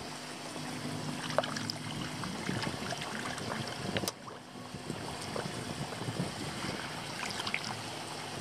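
Pond water splashing and lapping as koi jostle at the surface around a hand dipped in the water, with many small splashes and one sharper knock about four seconds in.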